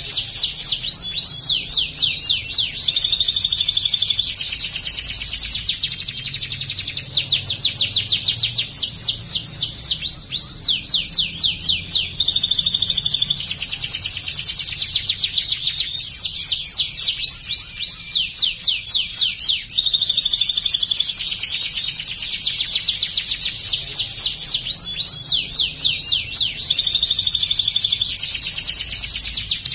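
Domestic canary singing without pause: bursts of rapid, repeated downward-sweeping high notes, the 'nembak' ciblek-style material copied from the bar-winged prinia, alternating with high steady trills.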